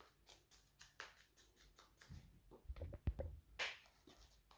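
Wooden spoon stirring a gritty sugar-and-soap scrub in a small glass bowl: faint, quick scrapes and clicks against the glass, with a few louder knocks about three seconds in.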